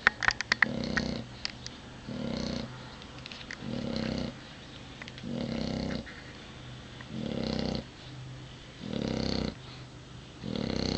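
English bulldog snoring in regular, buzzy snores about every one and a half seconds, seven in all, with a few sharp clicks near the start.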